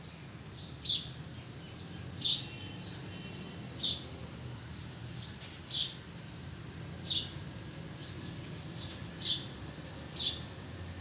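A bird chirping: short, high single chirps repeated about every second and a half, seven times, over a steady low background hum.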